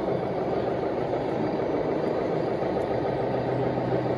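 Steady diesel truck engine sound from a 1/14-scale Tamiya RC semi tractor as it crawls across the scale, running evenly with a low hum.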